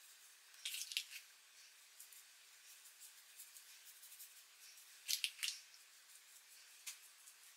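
Short crackly rustling and squishing from hands working a thick treatment cream through coily hair. It comes in brief bursts: about a second in, again about five seconds in, and once faintly near the end.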